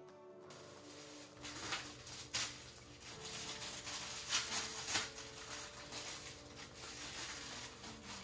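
Thin plastic produce bag crinkling and rustling as it is handled and torn open to take out a carrot, with several sharper crackles along the way.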